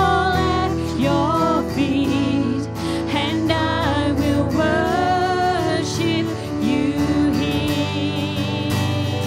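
Live worship song: a woman singing sustained notes with vibrato over acoustic guitar and keyboard.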